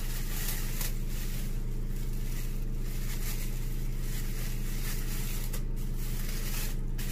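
Faint crinkling of a thin plastic bag being pulled and smoothed over the hair, coming and going over a steady low hum.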